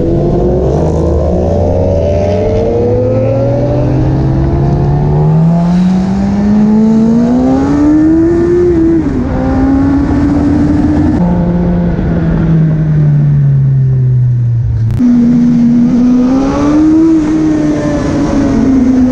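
Motorcycle engine heard from on the moving bike, its revs climbing steadily through a long acceleration, dropping back once at a gear change, then falling as it slows. After a sudden break about three quarters of the way in, the revs rise and fall again.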